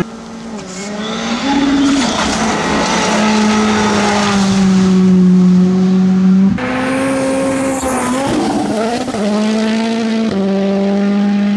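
Rally car engines at high revs on gravel stages. The note holds steady, then dips and climbs through gear changes, and switches abruptly twice from one car to another.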